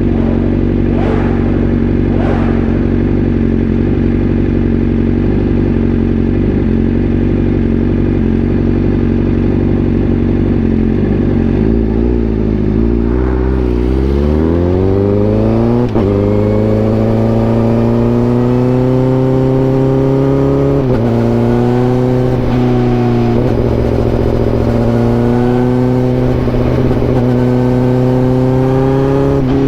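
Honda CBR1000RR-R SP's inline-four engine running at steady revs, then revving up about twelve seconds in and pulling through the gears, the pitch climbing and dipping briefly at each upshift.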